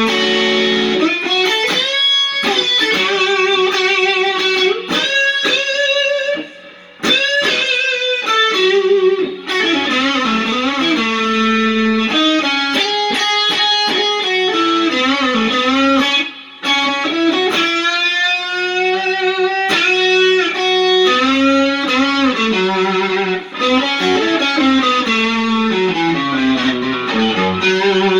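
Overdriven electric guitar playing lead lines, single notes with string bends and vibrato, through a TS808-style overdrive and a Lovepedal Supersix pedal into a Fender Hot Rod Deville amp. The playing breaks off briefly twice, about six and sixteen seconds in.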